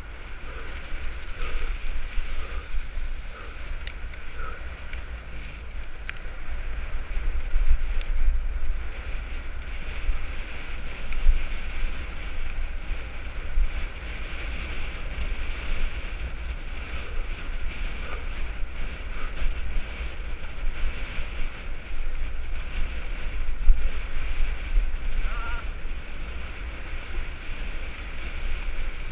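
Wind buffeting the microphone of a camera on a mountain bike ridden fast, with a steady rushing noise of tyres and bike rattle over a paved lane and dirt forest track.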